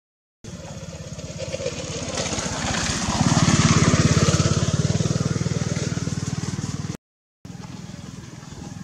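A motor vehicle's engine running with a fast, even pulse. It grows louder to a peak a few seconds in and then eases off, and the sound drops out to silence for a moment twice.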